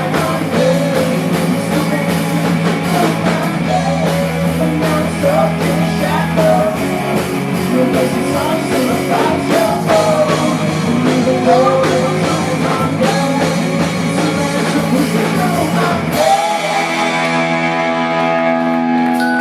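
Live rock band playing with a sung lead vocal over drums and guitars; about three-quarters of the way through the song ends and a held keyboard chord rings on alone.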